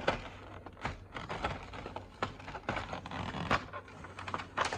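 Packaging rustling and scraping, with irregular small clicks, as a diecast model airliner is worked out of its box.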